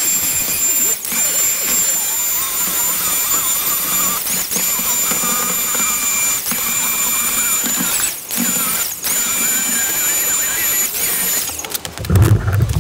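Handheld vacuum cleaner running with a steady high-pitched whine as it sucks up loose static grass fibres from a model railway layout. Its pitch dips briefly several times. It cuts off near the end, followed by a low thump.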